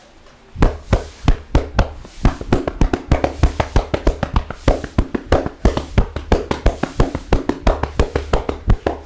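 A barber's hands striking a head in a fast, rhythmic percussive head massage, the slaps and claps coming about four times a second. It starts about half a second in.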